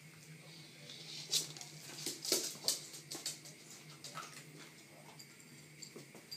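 A West Highland White Terrier's claws clicking on a laminate floor as it moves about: a quick run of sharp clicks about a second in, then a few scattered ones.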